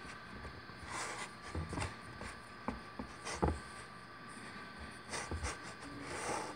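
Fingers pressing and pushing crumbly pastry into a springform pan: soft crumbly rustling with scattered light taps, most of them in the middle.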